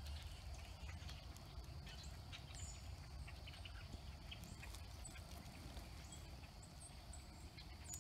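Freshly lit kindling crackling inside a small titanium wood-burning firebox stove, with scattered small pops over a low steady rumble. A few faint bird chirps.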